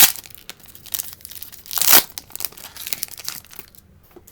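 A 2019 Donruss Optic baseball card pack's wrapper being torn open and crinkled, with a sharp crackle right at the start and a louder rip about two seconds in.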